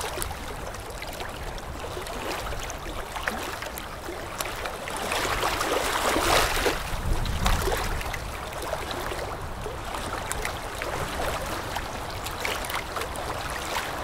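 A steady rush of flowing water with fine crackling, swelling about five seconds in and easing off a couple of seconds later.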